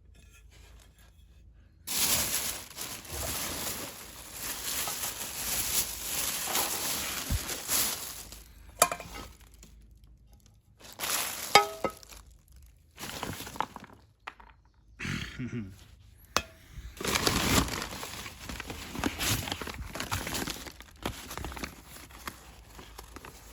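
Packing paper crumpling and rustling in long stretches as glassware is unwrapped from a box, with a few sharp clinks of glass, one ringing briefly, about nine and eleven seconds in.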